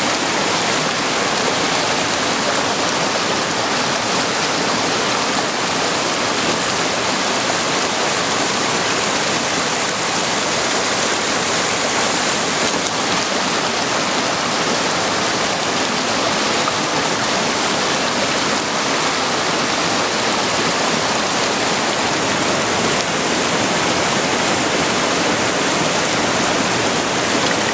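Rushing mountain stream: a steady, unbroken rush of water.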